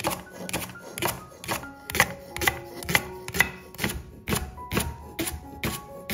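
A santoku knife slicing through a raw leek and striking a wooden cutting board, about two even chops a second, under background music.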